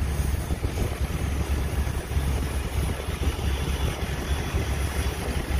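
Truck engine idling, a steady low rumble.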